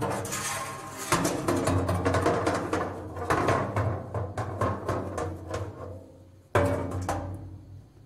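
Hollow strikes on a steel dumpster: a rapid run of knocks with heavier blows about a second in, about three seconds in and about six and a half seconds in, the metal body ringing on with a low boom between hits.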